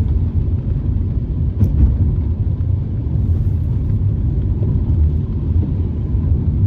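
Steady low rumble of a car driving on rain-soaked roads, heard from inside the cabin, with one brief click about a second and a half in.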